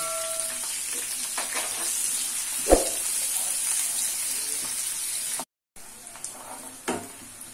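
Sliced onions sizzling in hot oil in a kadai as they are stirred with a spatula, frying toward golden beresta. A single sharp knock of the spatula on the pan comes a little under three seconds in, and after a brief break near the end the sizzle is quieter.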